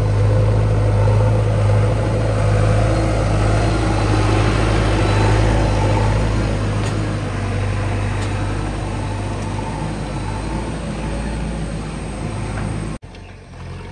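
JCB 3DX backhoe loader's diesel engine running steadily with a deep hum as the machine drives. It cuts off suddenly near the end to a much fainter background.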